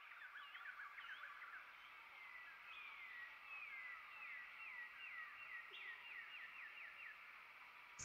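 Faint birdsong from several birds: many short chirps overlapping, with a run of quick repeated falling notes in the second half.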